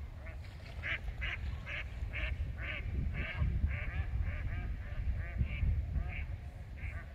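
Ducks quacking in a long run of short calls, about two or three a second.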